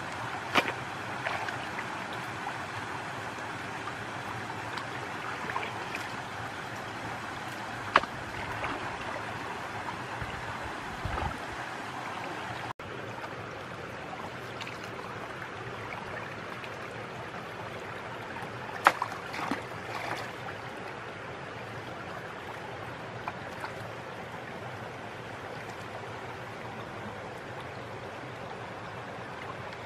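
Muddy water sloshing and trickling around a person wading in a shallow stream and working a pole into it, with a few sharp knocks, the loudest about eight seconds in and again a little past the middle.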